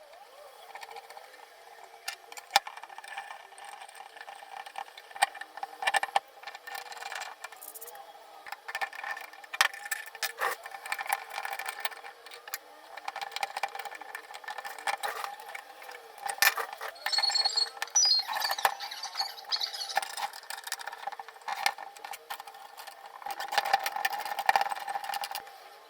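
Irregular clicks and knocks with a few light metallic clinks, over a steady hum.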